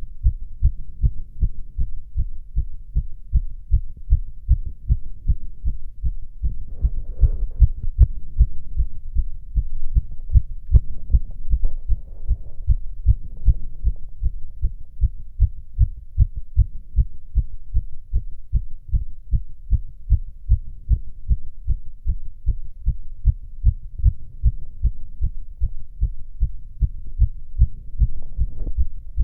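A man's own heartbeat auscultated at the chest: fast, regular lub-dub beats, a rapid heart rate with nothing abnormal heard. Faint rustling a few times, around 7 and 12 seconds in and near the end.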